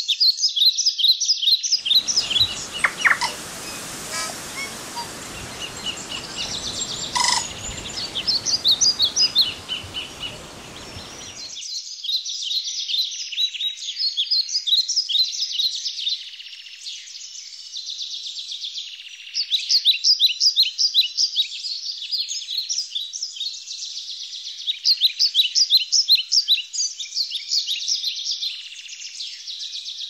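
Songbirds chirping in a busy, continuous chorus of quick high notes. A rushing noise runs under them from about two seconds in and cuts off suddenly a little after ten seconds.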